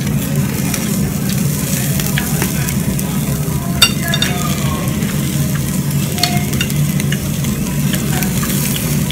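Meat sizzling on a tabletop yakiniku grill over a steady low hum, with a few sharp clicks; the loudest click comes about four seconds in.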